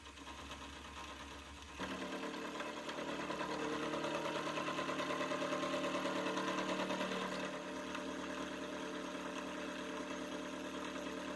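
Milling machine cutting a half-lap into square bar stock with a 1-inch end mill. It starts as a low steady hum. About two seconds in it gets louder, with a steady multi-pitched whine from the cut, which eases a little about seven or eight seconds in.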